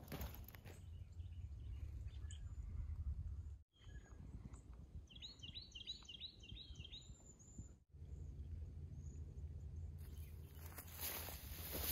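Wind rumbling on the microphone in open grassland. In the middle a bird gives a quick series of about six chirps, and near the end a louder rustle comes in.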